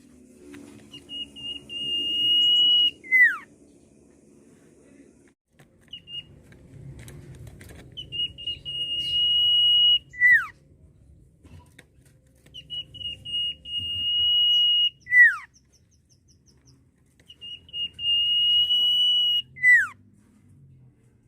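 Common iora (sirtu, cipoh) whistling its song four times. Each phrase is a long, steady, high whistle of about two seconds that ends in a quick downward slur.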